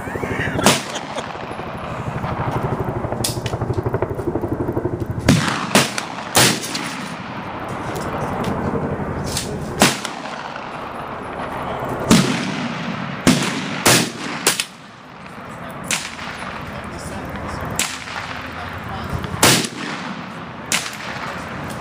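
SKS semi-automatic rifle fired repeatedly at irregular intervals, about a dozen sharp shots, some loud and close and others fainter, over a steady rushing background noise.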